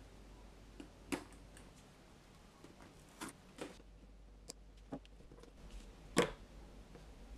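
Small metal clicks and taps of a brass zip and a screwdriver being handled: about six scattered sharp clicks, the loudest about a second in and about six seconds in.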